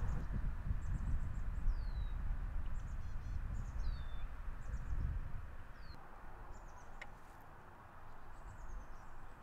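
Small birds chirping, with short high calls and quick falling whistles every second or so. Under them is a low rumble that eases off about six seconds in.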